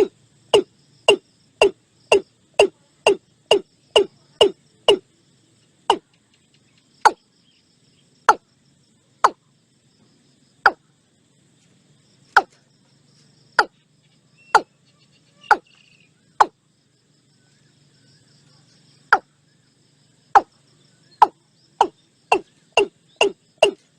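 Watercock calling: a series of short, sharp notes, about two a second at first, slowing to roughly one a second, breaking off for a couple of seconds, then quickening again near the end.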